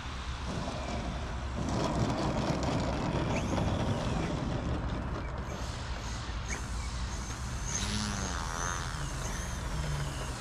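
Small RC aerobatic airplane landing and taxiing across grass: propeller and motor noise, loudest a couple of seconds in, then short throttle blips that rise and fall in pitch.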